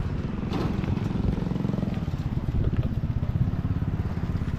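An engine running steadily with a low, rapid, even putter, with a few faint clicks over it.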